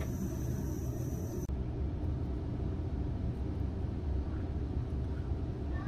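Steady low background rumble with no clear source. About a second and a half in it dips briefly and the thin high hiss above it drops away, as at an edit; after that only the low rumble remains.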